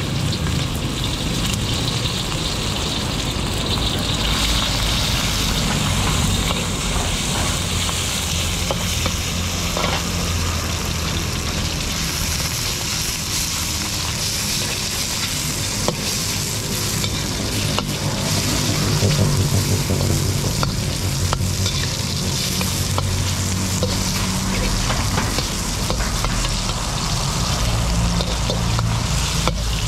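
Slices of meat sizzling in hot oil in a large steel wok, stirred and scraped with a long steel wok spatula that clicks against the pan now and then, over a steady low rumble.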